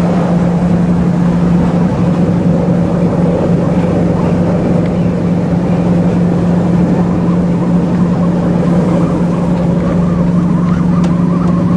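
VT 98 Uerdinger railbus running under way, its diesel engine giving a steady drone at an even pitch over the general running noise.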